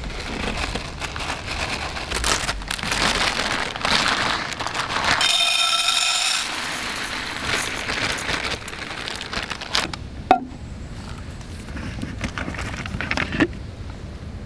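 Dry rice grains poured from a plastic bag into a small bowl, a grainy rustling hiss. Later come two sharp knocks of things set down on a wooden table.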